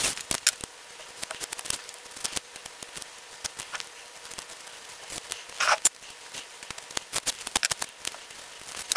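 Green painter's tape being pressed down, peeled and trimmed on a cast-iron vise jaw: a run of small crackles and clicks, with one longer ripping sound a little past halfway.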